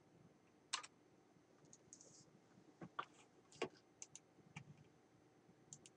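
About eight short, irregular clicks and taps from a computer keyboard and mouse, over a faint steady hum.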